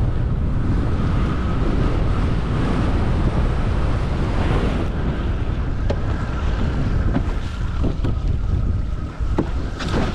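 Heavy wind buffeting the microphone, with water rushing past a windfoil board. A faint steady whistle sits above it, and a few sharp cracks come near the end.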